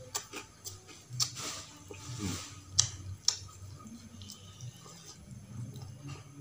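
A person eating rice and krupuk crackers by hand, chewing with a few sharp, wet clicks and smacks of the mouth. The loudest click comes about three seconds in.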